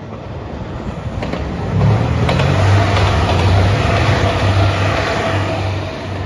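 JR Shikoku 2700 series diesel limited-express railcar passing at speed: its engine hum swells about two seconds in and eases toward the end, with a few sharp clacks of the wheels over rail joints.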